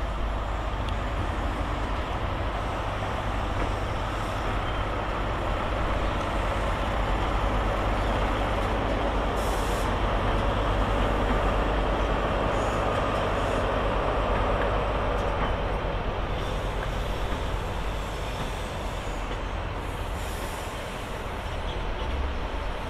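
ScotRail Class 43 HST diesel power car and its coaches rolling slowly past on the rails, a steady engine and wheel rumble that swells midway and eases toward the end.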